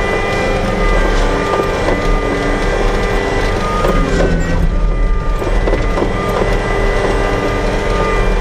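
Vehicle engine running steadily while driving slowly over rough pasture ground, with a low rumble and small knocks and rattles from the bumps. The engine eases briefly about halfway through.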